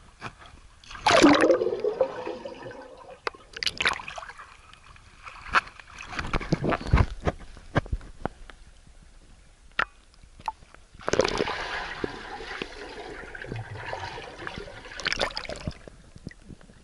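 Water splashing and sloshing in irregular bursts, the loudest about a second in and again from about eleven seconds, with scattered small knocks in between.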